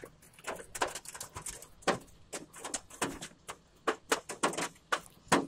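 Hailstones striking hard surfaces close by in a steady patter of sharp, irregular clacks, about four a second.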